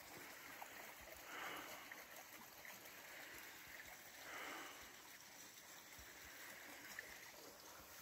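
Faint, steady trickle of a small woodland stream, swelling softly twice, about a second and a half and four and a half seconds in.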